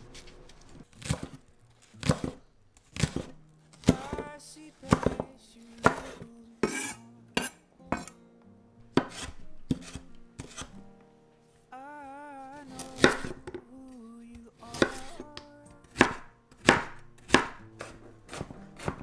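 Chef's knife chopping onion and carrot on a wooden cutting board: single knocks of the blade on the board, about one a second, with a short pause midway. Soft background music with held notes plays underneath.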